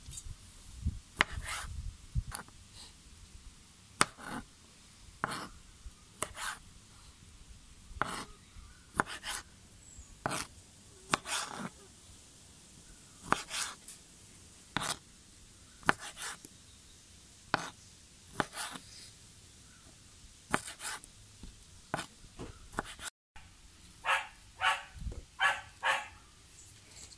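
Knife cutting through grapes and tapping a plastic cutting board: short sharp clicks about once a second, unevenly spaced. Near the end comes a quicker run of five or six louder sounds.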